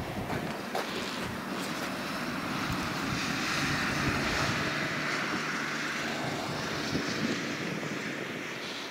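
A steady outdoor rushing noise, swelling to a peak about four seconds in and fading toward the end.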